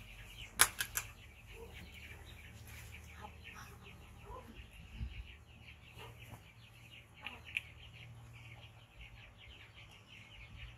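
Three sharp hand claps about half a second in, then a few softer knocks and rustles, over a steady low hum and constant high-pitched chirping in the background.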